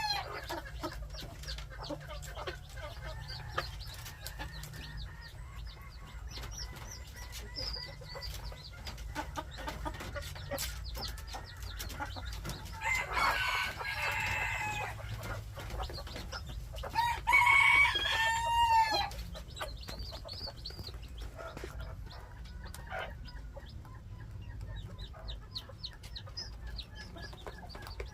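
Gamefowl chickens clucking and calling, with a rooster crowing once, a long crow about two-thirds of the way through. A shorter, rougher call comes a few seconds before it, over a steady low rumble.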